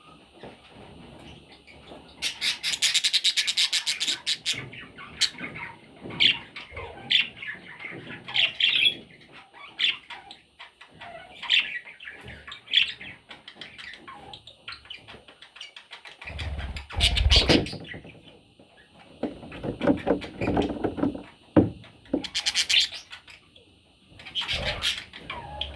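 Budgerigar chicks calling: rapid trains of high chirps, with a long fast burst a couple of seconds in and shorter ones near the end, and single chirps between. Low thumps and rustling come in the middle.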